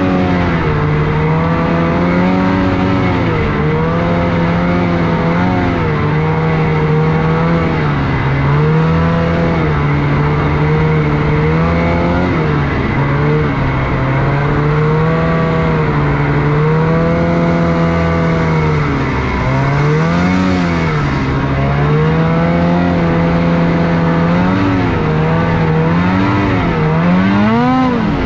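Snowmobile engine running under way, its pitch holding steady for stretches and rising and falling with the throttle. About twenty seconds in, and again near the end, it revs up and back down several times in quick succession.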